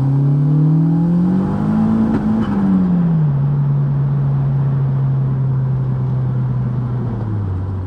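Turbocharged 1.8T 20v four-cylinder of a Mk2 Golf under acceleration. The revs climb for about two seconds, then fall back and settle to a steady run, dropping a little lower near the end. A sharp click comes at the top of the rev climb.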